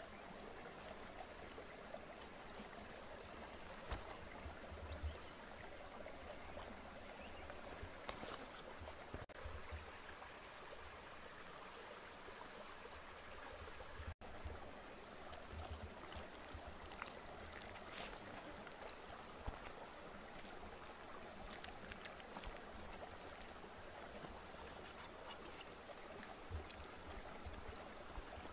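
Shallow stream running over rocks, a steady faint rush of water, with a few light knocks and handling sounds scattered through it.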